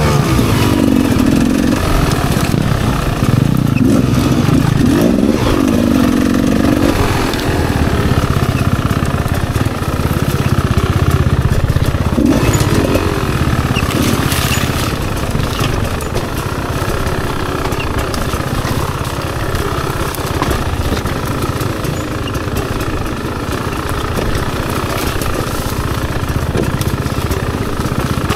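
Rieju MR300's 300 cc two-stroke enduro engine under riding load. The revs rise and fall repeatedly over the first several seconds and again around the middle, then run steadier.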